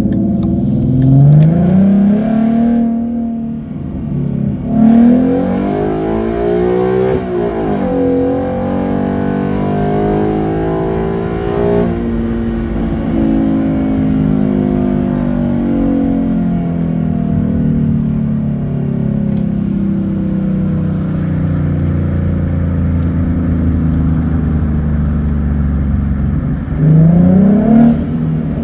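The 3.7-litre V6 of a 2014 Ford Mustang with a Roush cold air intake, its engine speed rising and falling. There are quick climbs in pitch near the start and twice more within the first several seconds, then a long slow fall, a steady stretch, and another sharp rev near the end.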